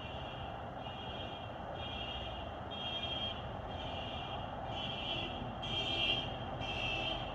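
A car alarm sounding the horn in repeated blasts, a little faster than one a second, from a car on the move. The blasts grow louder until about six seconds in as the car comes by, then ease slightly. A steady low background rumble runs underneath.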